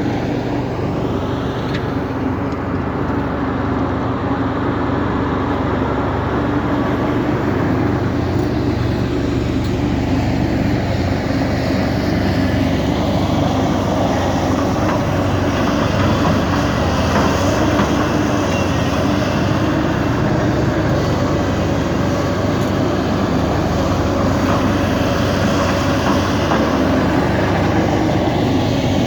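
Hyundai excavator's diesel engine running steadily, with a constant low hum and slow swells in its higher-pitched noise.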